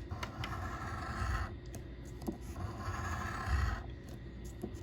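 Scratching the coating off a scratch-off lottery ticket: two rasping passes of about a second each, with short pauses between.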